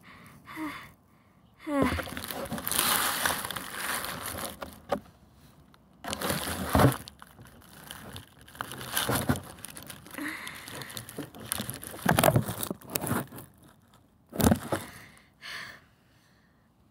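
Dry grass and dead leaves rustling and crunching as a hand moves plastic toy animal figurines through them, coming and going in uneven spells, with a few sharper bumps along the way.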